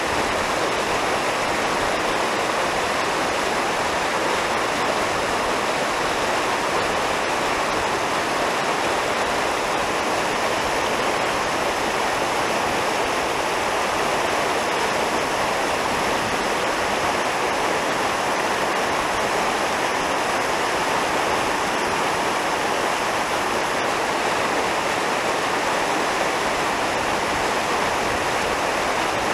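Fast mountain stream rushing through rapids over boulders: a loud, steady roar of white water.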